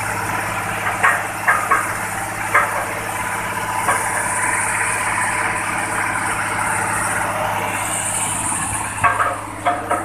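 Diesel engine of a vibratory road roller running steadily close by. A few sharp knocks come about one to two and a half seconds in, and a cluster near the end.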